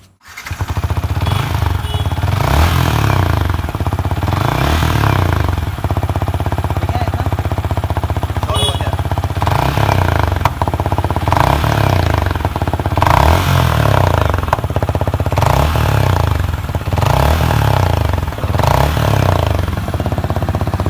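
Yamaha MT-15's 155 cc single-cylinder engine revved through its silencer, the exhaust note rising and falling in repeated blips every couple of seconds over a steady idle.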